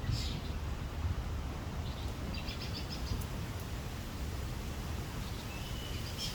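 Wild birds chirping: a short call at the start, a quick run of chirps a couple of seconds in, and a thin held whistle near the end, over a steady low outdoor rumble.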